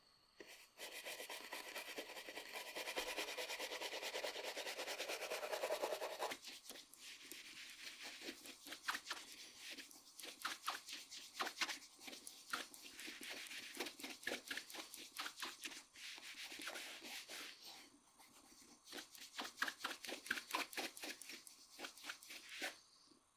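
Fingers rubbing shoe polish into the toe cap of a black leather shoe to raise a shine. A steady, fast rubbing runs for the first several seconds, then quicker back-and-forth strokes follow, several a second, until it stops near the end.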